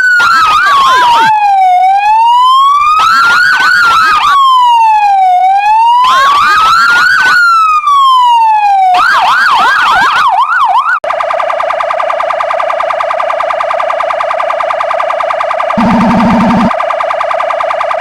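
Emergency-vehicle electronic sirens. A slow wail rises and falls about every three and a half seconds, with a fast yelp laid over it three times. The yelp then runs alone for a couple of seconds, and about 11 seconds in the sound switches to a steady, rapidly pulsing tone, with a short low horn blast over it near the 16-second mark.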